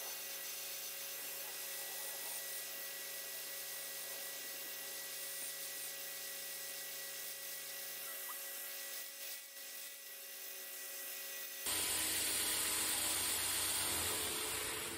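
Knife-making belt grinder running steadily, a whining motor hum. About twelve seconds in, the sound shifts abruptly to a louder, hissier run.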